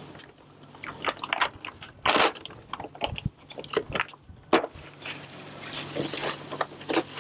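Plastic rubbish and plastic bottles crinkling, crackling and clattering in irregular bursts as a bucket of it is tipped out and sorted on a wooden dock.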